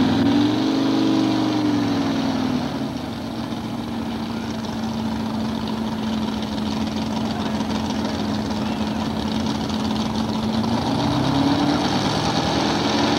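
Modified pulling tractor's twin 454-cubic-inch V8 engines revving up and back down over the first couple of seconds, then running at a steady note, and revving up again near the end.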